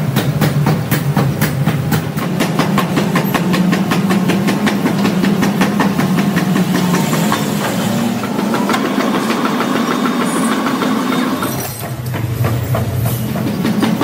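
Heavy metalworking machinery running with a fast, even clatter of about five or six knocks a second over a steady low hum. A thin whine joins for about three seconds past the middle, and the sound dips briefly near the end.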